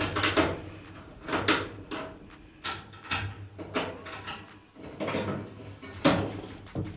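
Irregular clicks, knocks and scrapes, about six sharp ones, as a dryer's terminal-block cover plate is handled and fitted back in place over the newly connected power cord.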